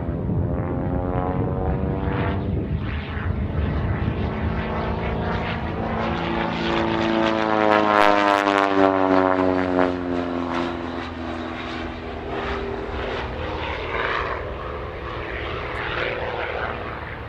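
Pitts Special aerobatic biplane's propeller engine running hard through its display. The engine note rises to its loudest about eight seconds in as the plane passes, then drops in pitch and fades somewhat.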